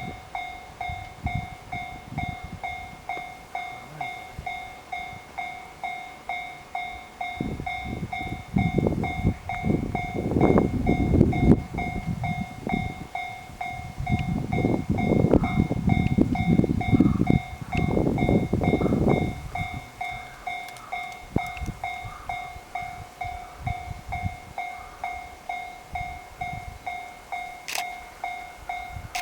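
Japanese level-crossing warning bell ringing evenly, about two strokes a second. From about 7 to 19 seconds in, a two-car KiHa E130-series diesel railcar passes over the crossing with a loud rumble and clattering wheels.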